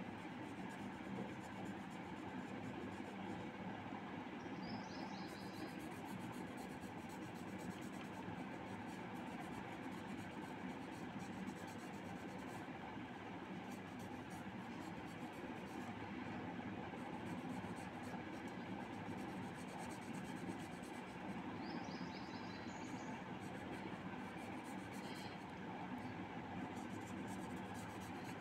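Felt-tip marker tip rubbing and scratching on paper while a thin band is coloured in, over steady background noise.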